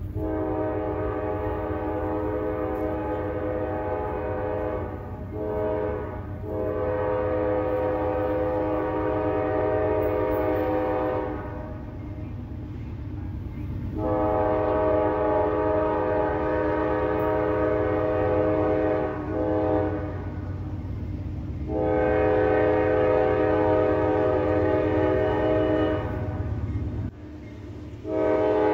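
Locomotive air horn sounding a chord in a series of blasts: a long one of about five seconds, a short one, then several more long ones with brief breaks between them. A low, steady rumble of the train runs underneath.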